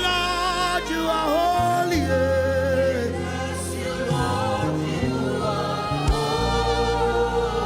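Gospel worship music: voices singing long held notes with vibrato over sustained low chords.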